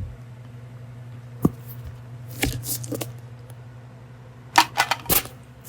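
Plastic toy food pieces clicking and knocking as they are handled and set down: a few light clacks around the middle and a quick cluster near the end, over a steady low hum.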